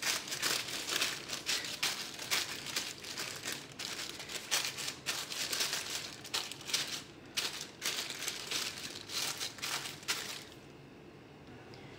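Butter paper crinkling and rustling in quick, irregular crackles as hands press and smooth it flat over a tray of date-and-nut barfi. The crackling stops near the end.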